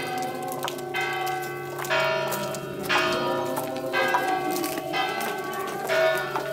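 Church bells ringing, struck about once a second with each stroke ringing on into the next, the pitch shifting from stroke to stroke as different bells sound.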